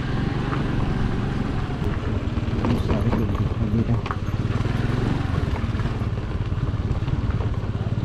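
A vehicle's engine running steadily at low speed, a constant low hum under road and wind noise.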